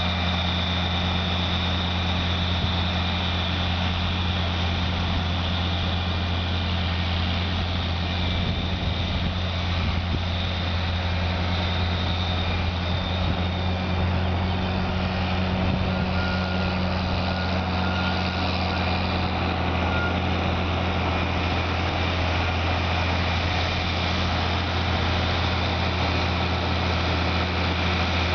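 John Deere farm tractor's engine running steadily as it pulls a disc harrow through the soil: a constant low drone.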